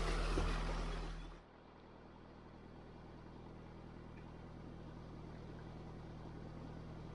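Narrowboat engine running steadily under way, a low even hum. A louder rushing noise fills the first second or so and fades out.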